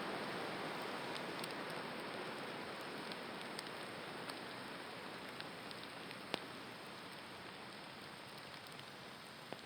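Water hissing and sizzling on a fire, slowly dying down, with scattered small pops and one sharper pop about six seconds in.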